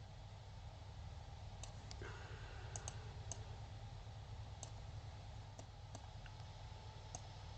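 Computer mouse clicking, a scattered series of single light clicks, over a faint steady low hum.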